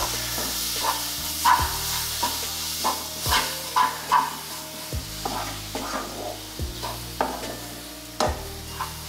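Wooden spatula scraping and stirring semolina and mashed banana in hot ghee in a nonstick kadhai, with a light sizzle underneath. The scrapes come unevenly, one or two a second, while the banana is fried into sooji halwa.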